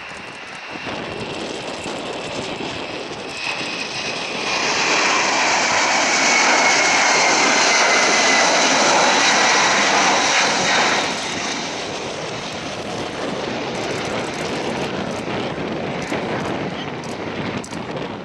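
Qantas Boeing 747-400's four jet engines at takeoff thrust as it climbs out past. A loud rushing jet noise with a high whine that falls in pitch as the aircraft goes by, loudest from about four to eleven seconds in, then fading as it climbs away.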